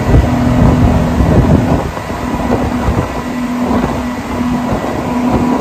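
Speedboat running at speed on open water: a steady engine drone over rushing wind and water, with irregular thumps.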